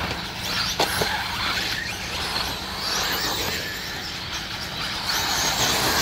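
1/8-scale electric RC buggies racing on a dirt track, their electric motors whining up and down in pitch with the throttle. A sharp knock comes just under a second in.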